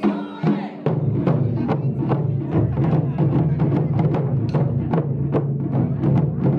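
Ensemble of nagado-daiko, barrel-shaped Japanese taiko drums, struck with wooden bachi sticks. After a few separate strokes, fast, dense, steady drumming sets in about a second in.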